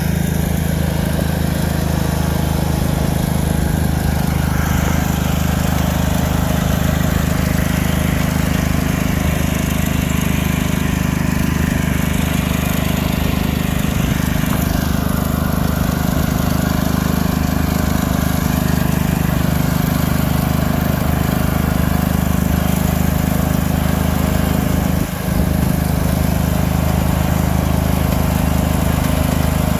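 Riding lawn mower engine running steadily under load as the mower tows a large boat on its trailer.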